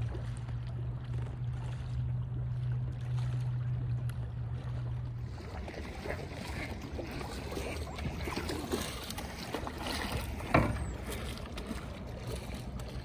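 Water splashing and dripping from kayak paddle strokes on calm river water, with one sharp knock about ten and a half seconds in. A steady low hum runs under the first five seconds.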